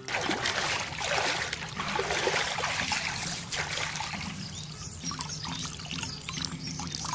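Water splashing and sloshing in a shallow muddy pond as a hooked fish thrashes and is hauled up. The splashing is loudest over the first few seconds, then eases to water running off as the fish and net bag are lifted out.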